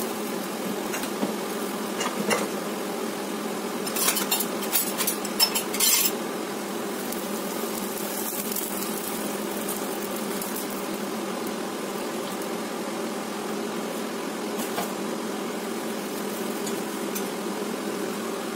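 Fried onion being scraped from a frying pan into a large pot of boiling soup with a spatula: clinks and scrapes of pan and spatula against the pot, busiest about four to six seconds in, over a steady bubbling of the boiling soup.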